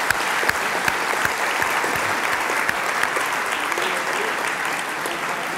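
Audience applauding: many hands clapping steadily, easing slightly toward the end.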